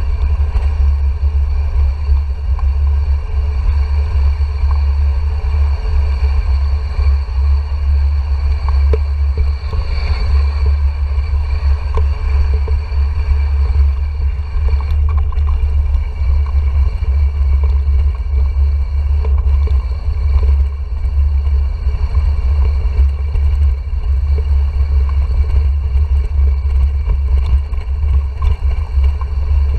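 Wind buffeting the microphone of a helmet- or bike-mounted action camera as a mountain bike rolls down a stone-paved path. It makes a steady low rumble, with small rattles and clicks from the bike running over the paving stones.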